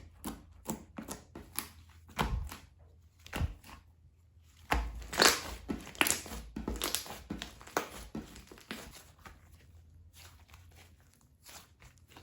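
Hands squishing, poking and stretching slime: a run of small crackling clicks and pops. They come thickest and loudest about five to seven seconds in, then thin out and grow fainter.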